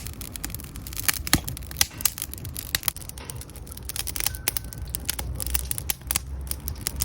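Wood fire crackling, with frequent irregular sharp pops and snaps over a low rumble.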